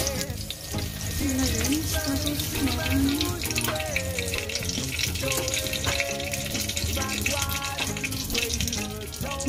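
Broccoli and chicken fritters sizzling in hot oil in a pot, a steady hiss with fine crackles, under background music with a melody.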